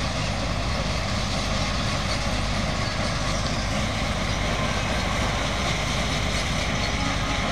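A heavy engine-driven machine running steadily, a continuous mechanical drone with a low hum under it.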